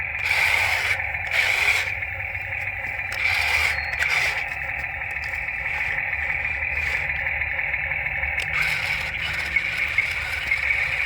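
Toy RC excavator's small electric motors whining steadily as it works, with a few short scraping noises from the digging.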